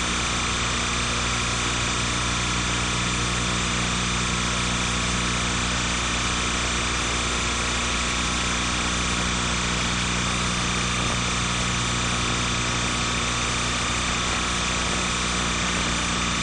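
Steady electrical hum with hiss, unchanging throughout and with no sounds from the scene: the noise of a soundtrack-less transfer of silent film footage.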